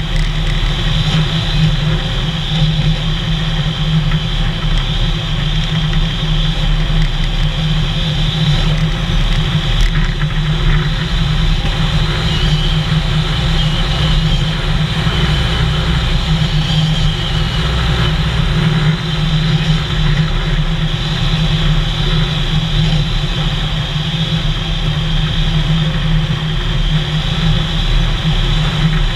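Vehicle engine running steadily while driving at a constant speed, mixed with road and wind noise, picked up by a camera on the bonnet.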